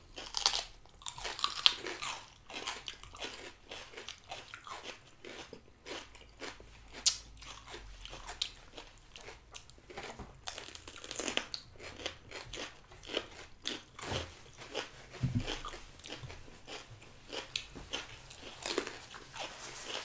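Crunchy biting and chewing: sweet peppers stuffed with soft cheese and coated in crushed Kurkure being eaten, with irregular crisp crunches.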